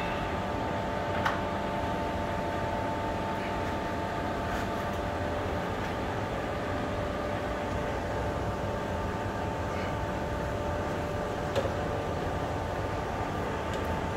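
Metal lathe running steadily: a hum with two steady whining tones. Two short metallic clinks, about a second in and again late on.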